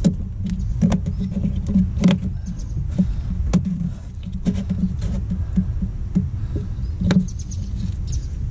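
Scattered, irregular clicks and light knocks of hand-tool work on power steering hose connections in a truck's engine bay, over a steady low rumble.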